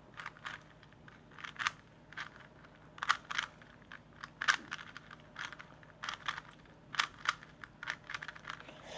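Plastic Rubik's Cube being twisted by hand, its layers clicking and clacking in quick irregular turns, some clicks coming in pairs.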